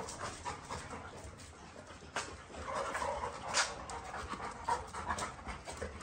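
Two yellow Labradors panting as they play and jostle, with scattered sharp clicks and scuffs from their paws on the paving stones.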